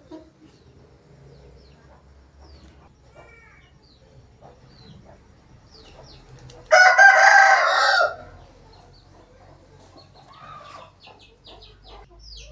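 Asil rooster giving a single harsh crow about a second and a half long, starting abruptly near the middle. Faint short chirps of small birds come before and after it.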